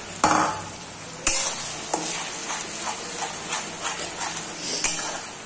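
Metal spatula stirring ginger-garlic-chilli paste into onions and tomatoes frying in oil in a metal kadai, with a steady sizzle. The spatula knocks sharply against the pan twice near the start, then scrapes in quick strokes, about three a second.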